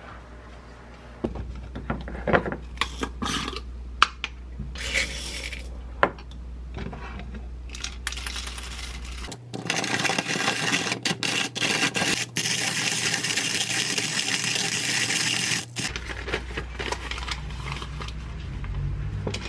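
Coffee beans being ground in a wooden hand-cranked coffee mill, a steady crunching grind for about six seconds from just past the middle. Before it come scattered clicks and knocks of dishes and objects being handled, and after it a soft rustle of a paper filter being fitted into a dripper.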